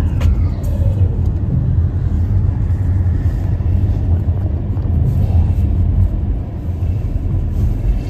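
Road noise inside a moving car's cabin: a steady low rumble of tyres and engine at road speed.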